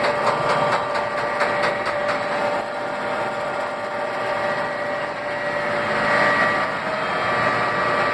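Milling machine running a friction stir weld, its spinning tool pressed into the joint between two metal plates: a steady mechanical whine with a few held tones, with a quick regular ticking over the first couple of seconds.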